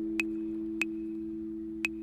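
Background music: a sustained chord ringing on and slowly fading, with three sharp, light ticks.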